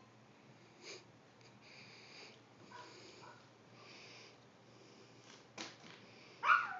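Quiet room with faint breathy sniffing sounds and a light knock about five and a half seconds in, then a young child's short, high squeal near the end, falling in pitch.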